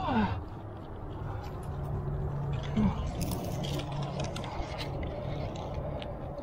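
A lead climber's rack of metal gear, carabiners and cams on the harness, clinking and jingling as he moves up the rock, with two short falling grunts of effort, one at the start and one about three seconds in, over a steady low hum.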